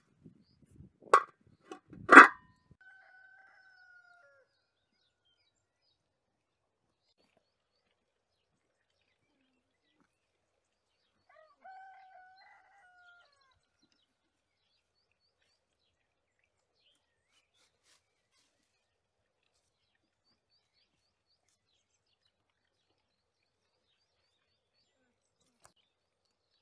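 Two sharp knocks about a second apart, the second the louder, followed by a rooster crowing twice, more quietly, each crow about two seconds long and dropping in pitch at the end.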